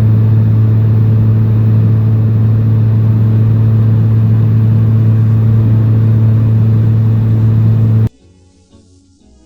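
Steady, loud drone of a car driving, heard from inside the cabin: engine and road noise with a constant low hum. It cuts off abruptly about eight seconds in, and faint music follows.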